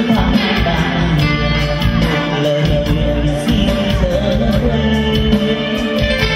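A man sings a Vietnamese song live into a microphone over amplified backing music with a steady beat.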